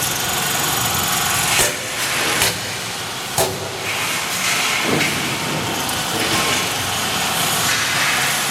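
CNC drilling machine with a multi-spindle head running, a steady hissing mechanical noise broken by a few short knocks.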